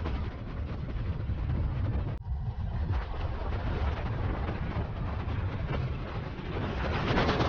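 Wind buffeting the microphone on an open beach: a steady, low rumbling rush with no distinct tones, broken by a short drop about two seconds in.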